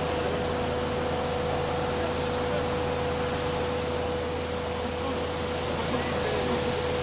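Rushing white water of a swollen mountain river, a steady even roar, with a faint steady hum running under it.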